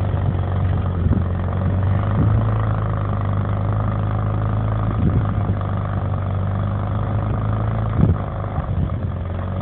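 Engine of a homemade all-terrain vehicle on low-pressure tyres running at a steady pitch as it drives through deep snow, with a few light knocks along the way.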